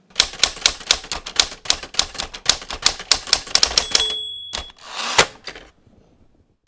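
Typewriter keys clacking rapidly for about four seconds, then a single bell ding and the carriage being returned with a sliding sound and a knock.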